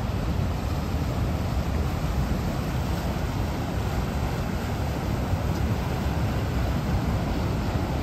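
Steady noise of Niagara Falls' water pouring down, heaviest in the low range and unbroken throughout.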